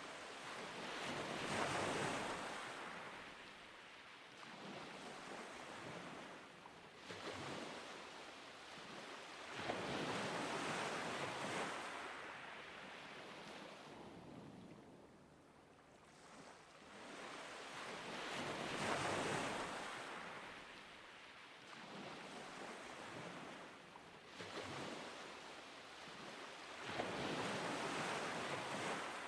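Ocean waves washing in and drawing back, each swell rising and fading about every eight to nine seconds, four times.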